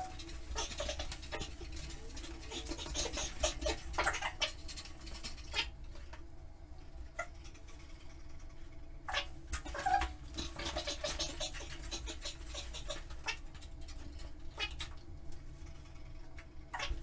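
A dog moving and scuffling about on a tiled floor while being handled, with scattered claw clicks and rustles and a brief whine about ten seconds in, over a steady low hum.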